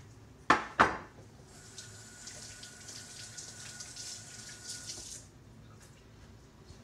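Two sharp knocks, then a kitchen tap running with a steady hiss for about three and a half seconds before it is shut off.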